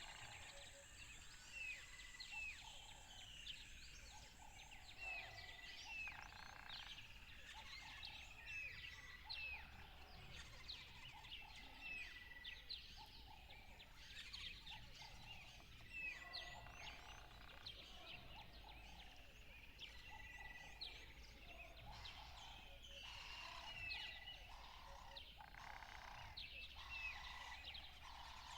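A chorus of small birds chirping and calling, many quick chirps overlapping, with one short whistled note repeating about every four seconds.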